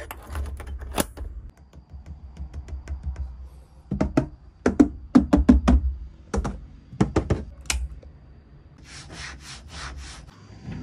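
Hands clicking and tapping on the plastic fittings and trim inside a Suzuki Super Carry van's cab: a run of sharp clicks and knocks, loudest and heaviest about four to six seconds in. Near the end come a few short rubbing strokes on the fabric headliner.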